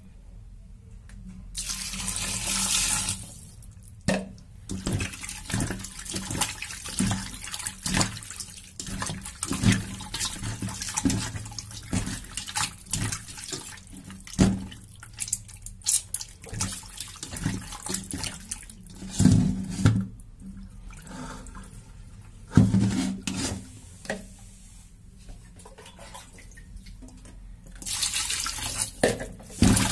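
Raw chicken pieces washed by hand in a stainless steel bowl at a sink: water splashing and sloshing, with the tap running in short spells near the start and near the end, and many small knocks of meat and hand against the bowl.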